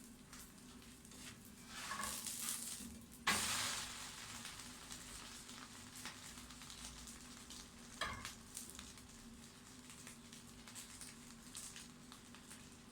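Frying sizzle from a hot oiled pan as mkhanfar batter is cooked, with a sudden loud sizzle about three seconds in that fades away, and a shorter flare of sizzling near eight seconds.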